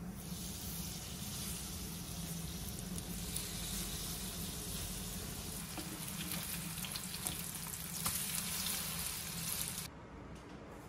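Korean zucchini pancake batter sizzling as it fries in hot oil in a pan. The dense hiss has scattered small crackles and stops abruptly about ten seconds in.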